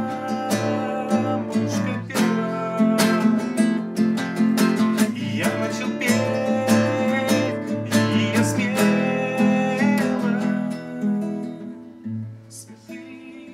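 Acoustic guitar strummed in a steady rhythm, playing the chords of a song, growing softer near the end.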